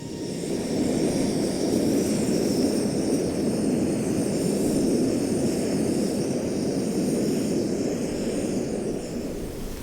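Small camera drone's propellers whirring steadily, a dense hum with a high whine over it, easing off near the end.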